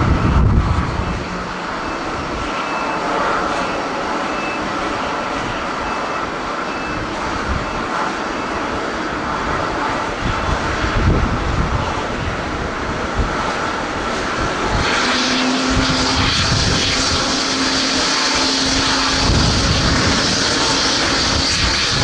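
Jet engines of a taxiing Boeing 737-800 airliner running with a steady whine, which grows brighter and louder about fifteen seconds in. Gusts of wind buffet the microphone several times.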